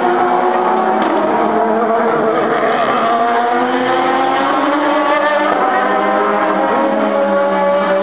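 Several race car engines running at speed at once, a loud, continuous blend whose pitches slowly rise and fall as the cars accelerate and pass along the track.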